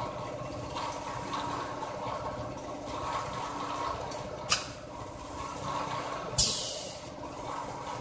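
Two-nozzle filling machine pouring liquid into plastic jugs, a steady rush of filling with a machine hum under it. A sharp click comes about four and a half seconds in, and a short burst of hissing air about six and a half seconds in, typical of the machine's pneumatic cylinders venting.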